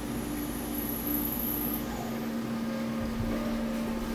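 Takisawa CNC lathe running, oval-turning a piston, with the cutting tool moving in and out as the piston turns. A steady machine hum, with a high whine over the first two seconds or so.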